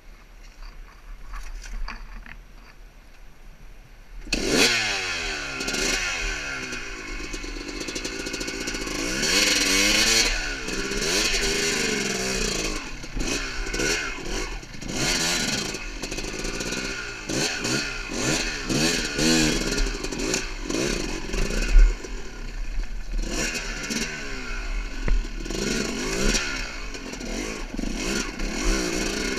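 Yamaha YZ250's two-stroke single-cylinder engine starts suddenly about four seconds in. It then revs up and down over and over as the dirt bike works over loose rocks, with clattering and scraping.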